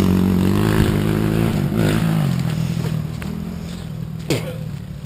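ATV engine running at a low, steady idle, gradually getting quieter, with a brief scrape about four seconds in.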